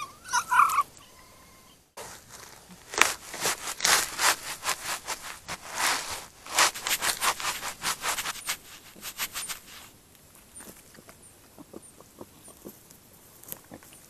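Wild boar right up against a trail camera: a dense run of rustling and scraping noises that fades to quieter, scattered rustles after about eight seconds. A brief squeak comes just before, about half a second in.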